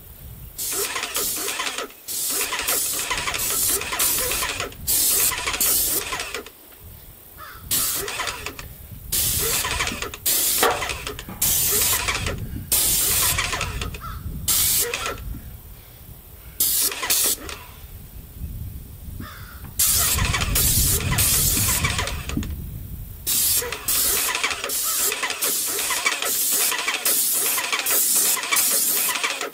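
Airless paint sprayer spraying in repeated trigger bursts of hiss, most under a second or so long with short gaps between and one longer pass about two-thirds of the way through, with the sprayer's pump motor running under the bursts.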